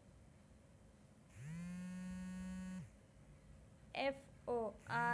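A person's voice holding one steady note for about a second and a half, then two short sounds and another held note starting near the end.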